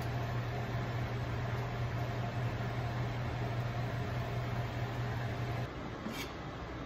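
Steady low hum of a kitchen fan with an even hiss while a pot of dumplings boils on the stove. The hum stops abruptly near the end, followed by a brief light click.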